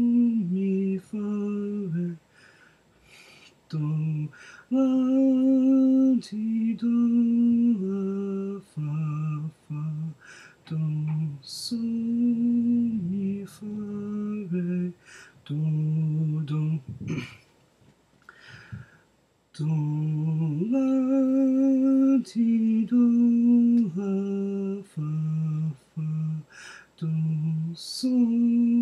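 A man sight-singing a melody on solfège syllables, unaccompanied. Each note is held for about half a second to a second, mostly moving by step, with a short pause about two-thirds of the way through.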